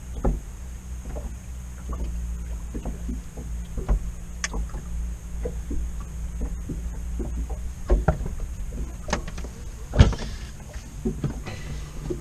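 Irregular clicks, knocks and rustles of fishing tackle and a landed zander being handled in an inflatable PVC boat, with a loud thump about ten seconds in, over a low steady hum.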